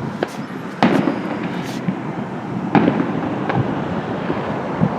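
Distant fireworks going off: a string of separate sharp bangs over a steady background rumble. The loudest comes about a second in and another just before three seconds, with smaller pops between.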